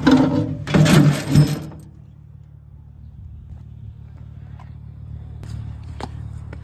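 Loud clattering and rattling of scrap being handled for about two seconds, over the steady low hum of a vehicle engine idling. After the clatter, the engine hum continues with a few faint clicks.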